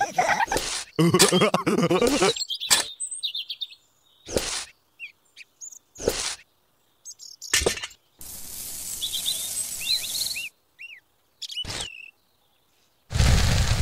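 Short bursts of a tiny trowel scraping and scooping sand and tipping it into a small bucket, each burst cutting off suddenly into silence. Birds chirp in the background, and a louder handling noise comes near the end.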